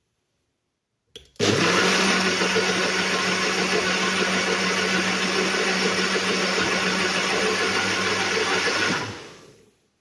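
Small push-down blender pressed to run: a click, then the motor starts and runs steadily for about seven and a half seconds with a low hum, blending a liquid mix. It then winds down and stops as it is released.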